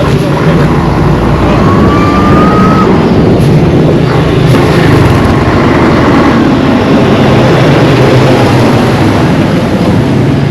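Busy street traffic with a motor vehicle's engine running close by, steady and loud. A short, high, rising tone sounds about two seconds in.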